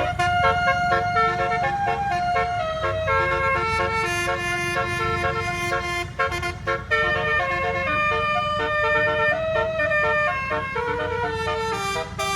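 A bus's telolet horn, an 18-note "basuri" multi-tone air horn, playing a melody: held notes stepping up and down in pitch, over a steady low rumble.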